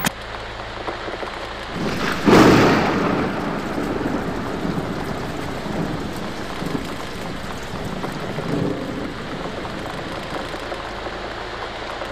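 Thunderstorm: steady rain with a single thunderclap about two seconds in that fades away over a few seconds.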